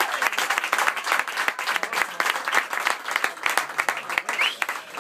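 A small crowd of spectators clapping, a dense irregular patter of many hands, with a few voices mixed in.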